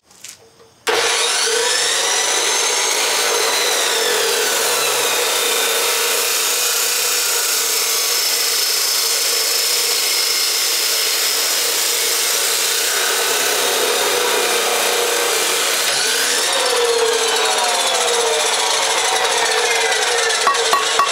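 Abrasive chop saw cutting through mild steel: a loud, steady grinding noise with a whine that wavers in pitch, starting about a second in and stopping sharply near the end.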